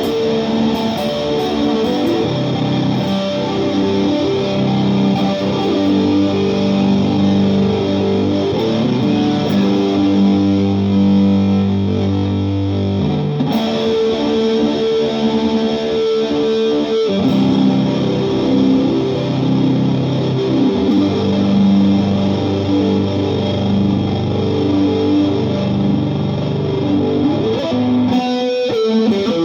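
Electric guitar, a Japanese Fender Telecaster, played through a Vox AC15 amp and a chain of effects pedals with a distorted tone, sustained chords changing every few seconds. There is a short break about 17 seconds in and a wavering sweep near the end.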